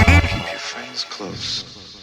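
Electronic dance music from a hard-dance DJ mix: a loud, pounding beat with heavy bass cuts out about half a second in, leaving quieter synth sounds that fade away.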